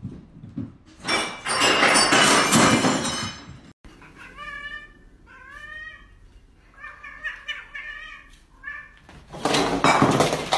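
A cat meowing several times in short calls that bend up and down in pitch. Before and after them come loud noisy bursts.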